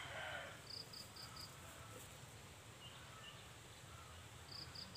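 Faint countryside ambience, opening with the fading end of a rooster's crow, then a run of four quick high chirps about a second in and another near the end.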